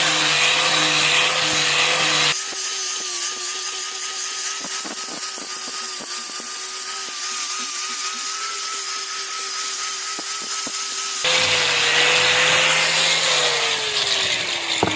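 Electric power tool running with a steady whine as it sands and buffs the glue-and-sawdust filler off a repaired cricket bat. Its sound shifts abruptly about two seconds in and again near the end.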